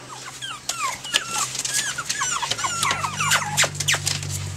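A litter of Pomeranian puppies whining and squeaking: many short, high, falling squeaks from several pups overlapping, with scattered clicks and scuffles as they move about. A steady low hum comes in about halfway.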